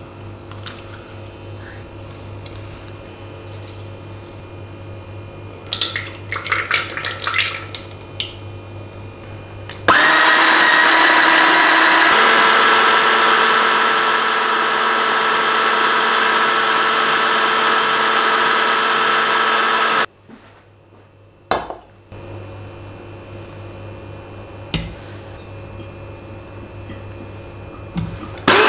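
Immersion blender with a chopper-bowl attachment runs for about ten seconds near the middle, blending egg, garlic and lemon as olive oil is poured in slowly to make mayonnaise. Its note changes about two seconds after it starts, and it stops abruptly. Before and after it there are a few light knocks from handling the bowl.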